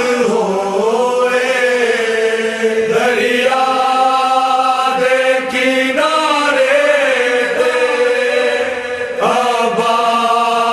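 Slow chanted devotional lament sung by a voice in long, wavering held notes over a steady low drone, with short breaks between phrases.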